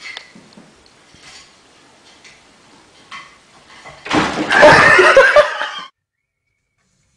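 A wooden chair toppling onto a tile floor, knocked over by a cat perched on its back: a sudden loud crash and clatter about four seconds in that lasts under two seconds and cuts off abruptly. Before it there are only a few faint knocks.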